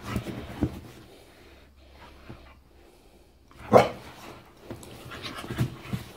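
A Staffordshire bull terrier gives one short, loud bark in play a little past halfway, amid quieter rustling and scuffling on the sofa.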